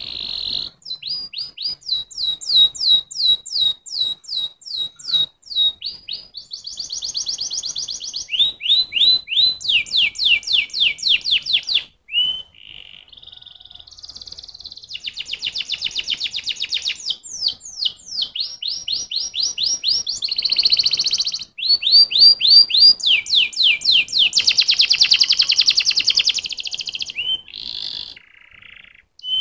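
Domestic canary singing: a long song of rapid trills, each phrase repeating one high note many times before switching to a different one, with a softer stretch about twelve seconds in.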